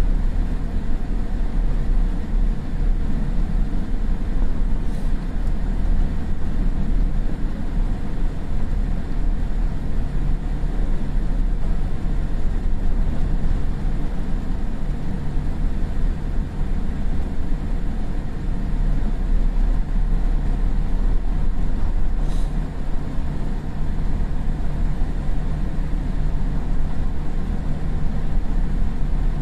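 Steady low rumble inside the cabin of a Boeing 787-8 taxiing after landing, engines at idle. Faint clicks sound about five seconds in and again about 22 seconds in.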